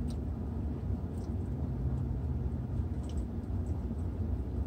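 Steady low rumble of an idling car, heard inside the cabin, with a few faint clicks.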